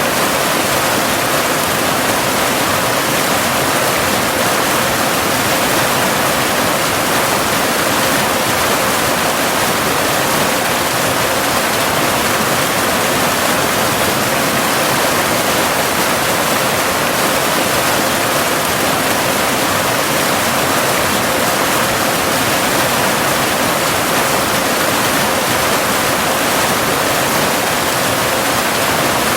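Cascading waterfall, water rushing steadily without a break. A faint steady tone near 528 Hz, a binaural delta-wave tone, hums underneath.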